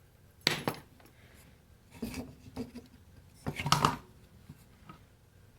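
Small metal tools and objects clinking and rattling as they are handled on a workbench, in three short clattering bursts, the last one the loudest.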